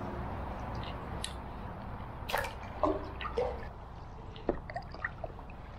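Stand-up paddleboard paddle strokes in canal water: drips and small splashes off the blade, loudest a little over two seconds in, over a low steady rumble.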